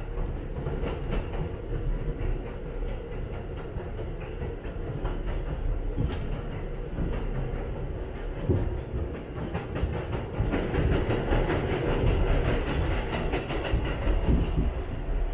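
New York City subway train running on its track, heard from inside the car: a steady rumble of wheels on rail with light clicks over the rail joints, growing louder about ten seconds in.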